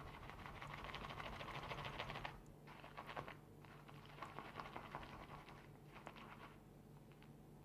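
Shaving brush whipping soap lather in a ceramic shaving scuttle, a faint wet crackling patter, dense for the first two seconds and then fainter and more scattered. The lather is still being worked because it has some air bubbles.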